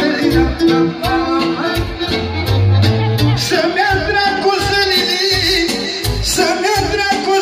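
Loud live manele music: singing over a band with a steady, pulsing beat.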